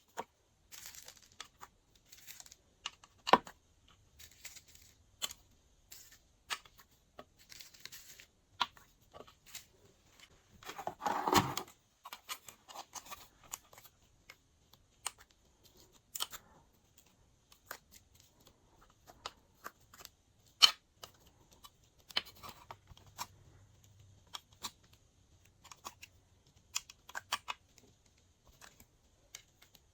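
Glossy slime being mixed by hand: irregular sticky clicks and small pops, with one longer, louder squelch about eleven seconds in.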